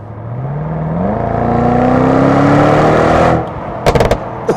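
Twin-turbo V8 of a Mercedes-AMG GLE63S with an Akrapovič Evolution Line titanium exhaust, accelerating hard, its note climbing steadily in pitch and loudness. About three and a half seconds in the sound cuts off suddenly. A quick burst of sharp cracks from the exhaust follows.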